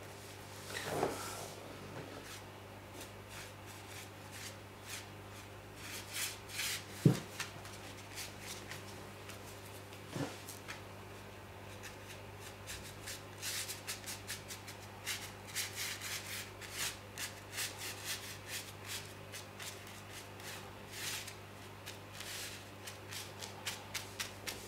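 Ink brush rubbing and dabbing across paper in short strokes, coming thick and fast in the second half. A few soft knocks, the sharpest about seven seconds in, over a steady low hum.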